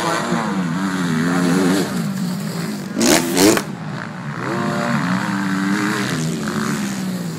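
Motocross bike engines revving, their pitch rising and falling as the riders accelerate and shift around the dirt track. Several engines are heard at once, and one bike revs hard and loud close by about three seconds in.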